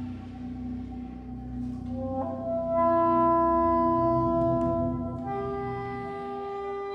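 Soprano saxophone playing slow held notes over a steady low electronic drone. About two seconds in, a note enters with a quick lower grace note and swells to the loudest point with other held pitches sounding alongside it; a little past halfway a new held note takes over.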